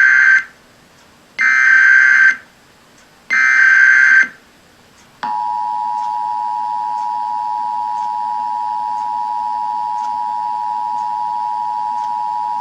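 Emergency Alert System test signals broadcast over radio. First come the short buzzing SAME data bursts of the alert header, repeated with about a second's pause between them. About five seconds in, the steady two-tone EAS attention signal starts and holds unchanged.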